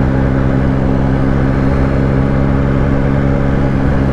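Motorcycle engine running steadily at cruising speed, a constant low hum under an even rush of wind and road noise on the helmet-mounted microphone.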